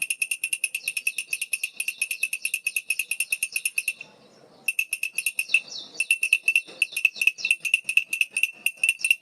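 Baby's rattle (khulkhula) shaken fast and evenly, about eight rattles a second with a bright, ringing jingle, breaking off for a moment about four seconds in before starting again.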